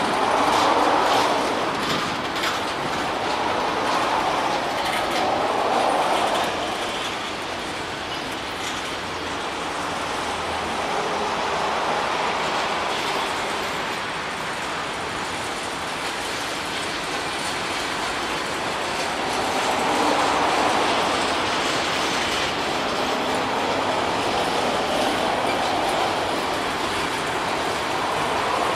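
Freight cars of a long train rolling past: a steady rumble and rattle of steel wheels on rail that swells and eases twice, with a quick run of clicks over the rail in the first few seconds.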